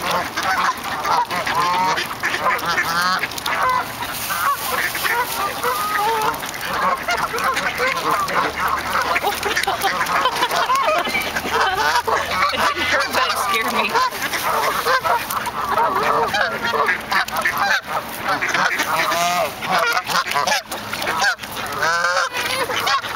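A flock of Canada geese and mallards calling non-stop, a dense chorus of overlapping honks, as the birds crowd in to be hand-fed corn.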